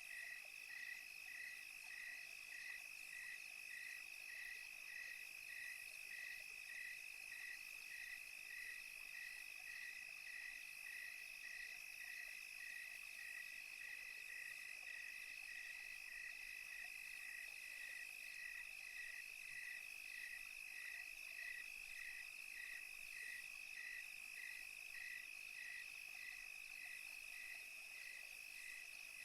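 Night crickets chirping in an even rhythm, a little under two chirps a second, over a continuous high insect trill.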